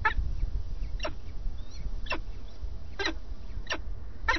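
Peregrine falcon chicks at the nest giving short, harsh begging calls, about one a second and closer together near the end, while an adult feeds them. A steady low rumble sits underneath.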